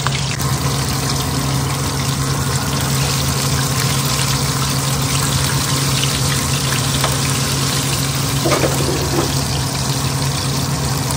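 Broast chicken pieces deep-frying in hot oil over a low flame: a steady sizzle with fine crackles, over a steady low hum.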